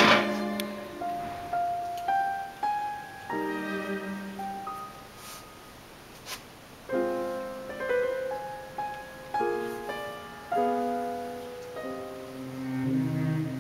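Background piano music: a slow melody of single held notes and chords.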